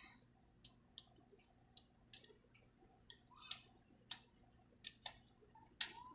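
Thin clear plastic crinkling and clicking in about a dozen short, sharp, irregular ticks, the loudest one near the end.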